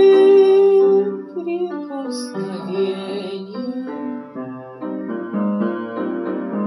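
A woman singing a Russian song with piano accompaniment: she holds a long note at the start, then sings the last word of the line, "прикосновением". Near the end the piano plays on alone.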